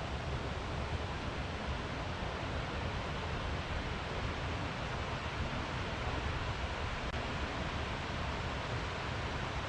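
Steady rush of a waterfall: an even, unbroken roar of falling water.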